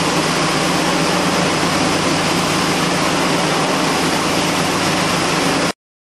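MFS-500 high-speed pulverizer (plastic powder mill) running: a loud, steady rushing machine noise over a low hum. It cuts off suddenly near the end.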